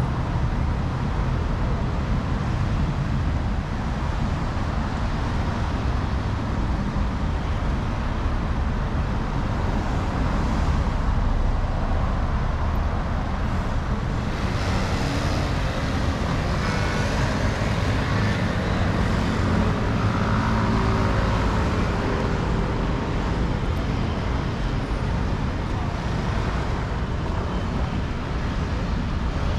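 Steady road traffic noise of cars running along a busy city street, a continuous low rumble of engines and tyres.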